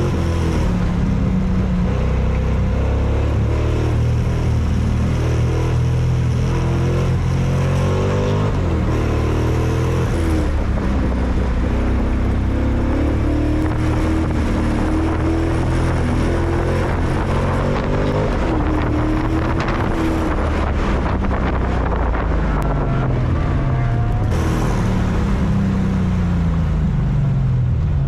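Race car engine being driven hard, revving up and falling off again and again as it accelerates and lifts, with wind noise over it.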